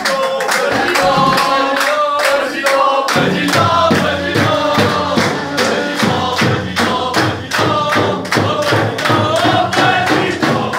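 A group of young footballers chanting together in unison with rhythmic hand-clapping, about two claps a second, the sound filling out and getting fuller from about three seconds in.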